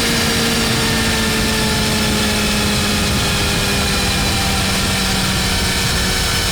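BMW M1000R's inline-four engine running at speed under a heavy rush of wind, its pitch easing slowly downward.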